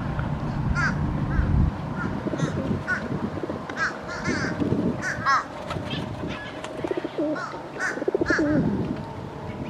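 Birds calling: a string of short, repeated high calls and caws, with lower wavering coos in between. A steady low hum stops under two seconds in.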